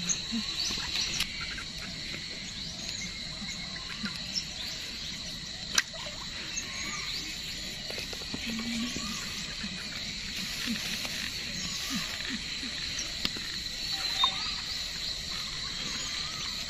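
Rural outdoor ambience: a steady high insect drone with many scattered bird chirps. A single sharp click comes a little before the middle.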